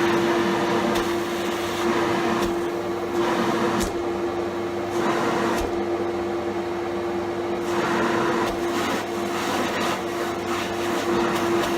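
Bag-type dust collector running with a steady hum, its motor and impeller drawing air through the pipe. A couple of light knocks come about four and six seconds in.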